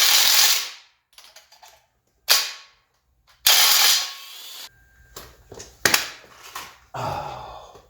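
Impact wrench run in short bursts, driving the bolts that hold the flex plate to the small-block Chevy 350's crankshaft. A burst ends under a second in, a brief one comes about two seconds in, and another of under a second about three and a half seconds in. Lighter metallic clicks and knocks follow near the end.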